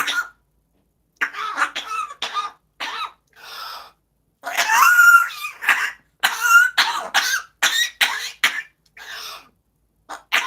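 Parrot mimicking a person's coughing fit, copied from a man choking on his own saliva: a string of short hacking coughs and throat-clearing sounds with brief pauses between them.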